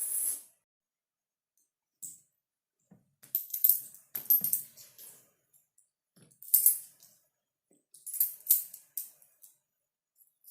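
Coins dropping and clinking on a hard surface: the ringing of a spill dies away at the start, then small coins clink and rattle in several short, separate clusters of sharp metallic ticks.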